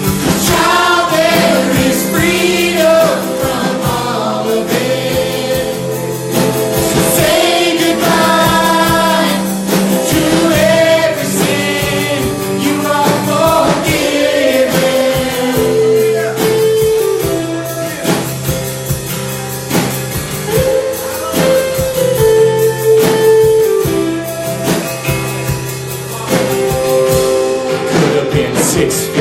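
Gospel music: a group singing a congregational song over instrumental accompaniment with a steady beat.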